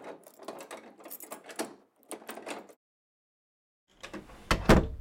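Foley mechanical handling sounds: about three seconds of clicking, clattering and scraping, like a latch or mechanism being worked. After a second's pause come two heavy thuds, the loudest sounds, close together near the end.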